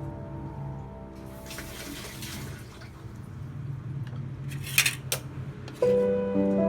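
Soft background music, with a brief watery rush about a second and a half in and two sharp clicks near the five-second mark.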